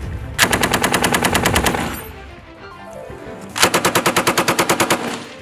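Machine gun firing two long, rapid bursts, the second starting about three seconds after the first.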